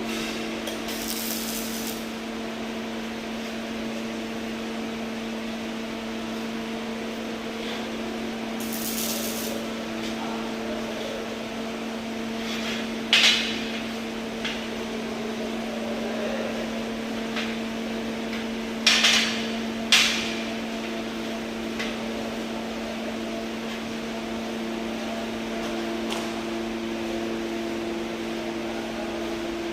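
A steady low hum throughout, with two short hissing bursts in the first ten seconds and a few sharp metal knocks: one about 13 seconds in and two close together around 19 to 20 seconds.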